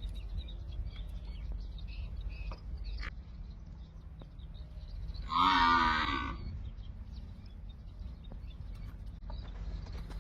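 A cow mooing once, a single call of about a second a little past the middle, over a steady low background rumble.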